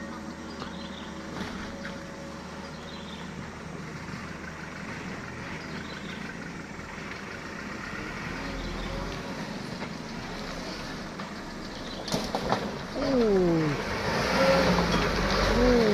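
Mitsubishi Fuso Canter dump truck's diesel engine pulling the loaded truck through deep mud, growing louder as it nears. Near the end its note falls sharply twice as the revs drop.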